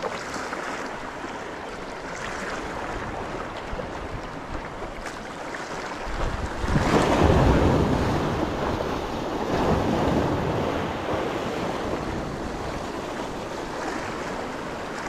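Sea waves washing against the shore, a steady wash that surges louder twice near the middle, with wind rumbling on the microphone.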